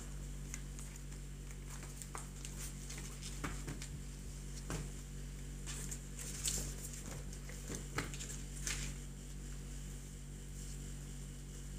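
Paper rustling and light handling noises as a stack of punched documents is turned over and shifted on a desk, with scattered soft taps, over a steady low hum.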